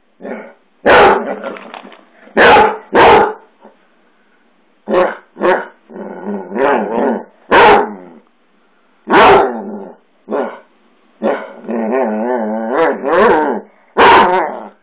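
Basset hound barking about six loud, sharp times, with quieter short barks and wavering, grumbling moans between them.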